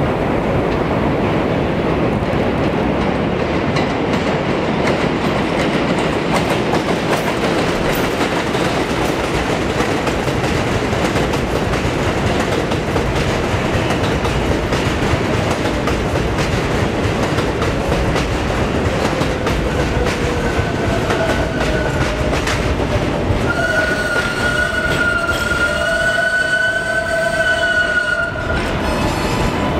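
Kawasaki R62 subway train running on elevated track, its wheels clattering over the rail joints as it passes close by. From about two-thirds of the way in, a steady high squeal with overtones sounds as the train brakes to a stop, cutting off shortly before the end.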